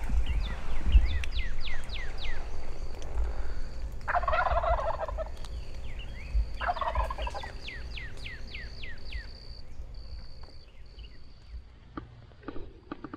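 Wild turkey gobbling twice, about four and six and a half seconds in, each gobble a rapid rattling call lasting about a second. Around the gobbles, other birds sing series of quick falling whistled notes, over a low rumble of wind on the microphone.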